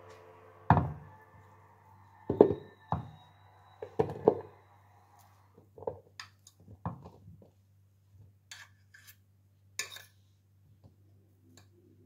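A metal fork knocking, clinking and scraping against a glass dish as food is forked out of it: several sharp knocks in the first few seconds, then lighter clicks and scrapes, over a faint low steady hum.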